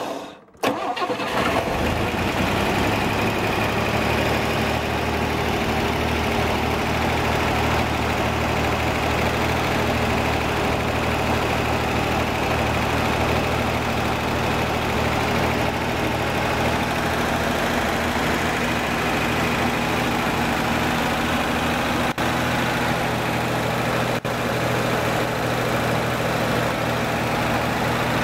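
Rebuilt Corvair 140 hp air-cooled flat-six engine, fed by four carburettors, starting about a second and a half in and then running steadily at a fast idle on cold start with the chokes on.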